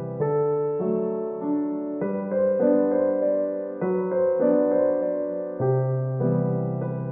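Background piano music: single notes and chords struck at an even, unhurried pace, each ringing and fading into the next.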